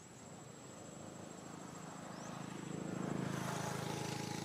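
A distant engine comes closer, its low hum growing louder over about three seconds and then holding steady.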